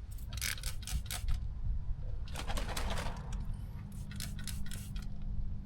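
Trigger spray bottle squirting soapy water onto a freshly plugged tire to leak-test the repair: quick hissing squirts in three clusters, over a steady low hum.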